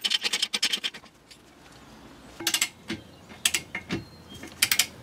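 Hand ratchet wrench clicking as bolts are turned: a fast run of clicks in the first second, then three short bursts of clicks about a second apart near the end.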